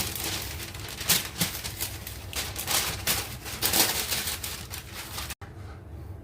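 Baking paper crinkling and rustling in quick, irregular scrunches as shortbread dough is pressed and kneaded on it by hand. It cuts off abruptly a little past five seconds in, and fainter handling follows.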